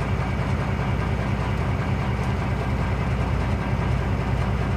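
Truck engine running with a steady low rumble, heard from inside the cab.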